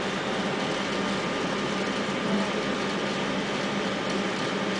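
Steady background room noise: an even hiss with a faint low hum underneath, unchanging throughout.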